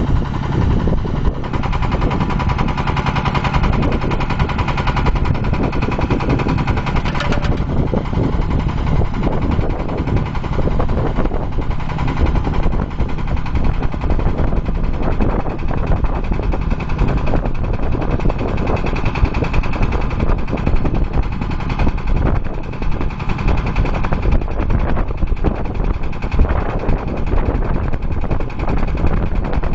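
HF120W water well drilling rig with its diesel engine running: a loud, rapid, unbroken clatter of knocks.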